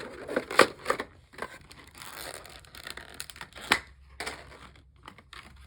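Packaging being crinkled and torn open by hand, with a run of sharp crackles and two louder snaps, about half a second in and near the middle.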